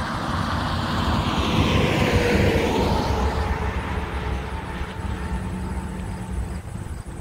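Tractor-trailer semi truck passing close on the highway: engine and tyre noise swell to a peak about two seconds in, the hiss falling in pitch as it goes by, then fade as it drives away.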